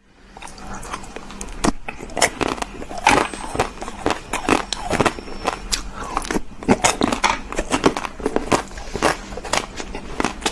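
Close-miked chewing and crunching of crunchy sweets: a dense, irregular run of sharp crunches that fades up from silence over the first second or so.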